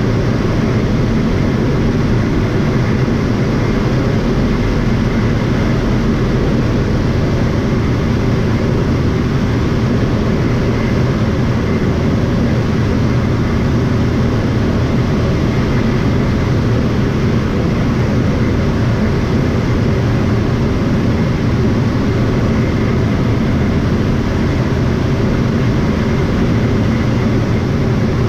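Propeller airplane's piston engine running steadily, with an even drone that holds without change.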